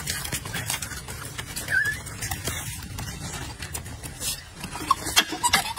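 Golden snub-nosed monkeys with a brief high squeak about two seconds in, over a low background rumble and scattered clicks, with several sharper clicks near the end.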